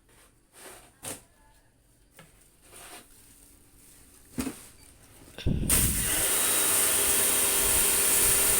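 A few light knocks and clicks, then about five seconds in an electric motor-driven machine starts and runs steadily, loud, with a high hiss and a hum.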